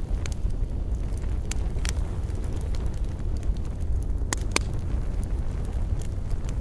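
Wood campfire crackling, with scattered sharp pops over a steady low rumble; two louder pops come close together about four and a half seconds in.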